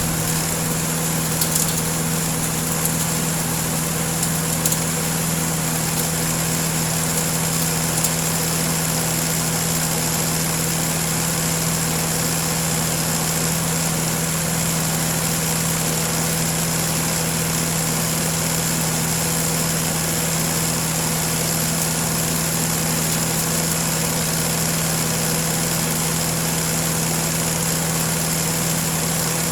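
Small four-stroke grass-cutter engine running at a steady speed, driving a manure grinder, with a few faint ticks in the first several seconds.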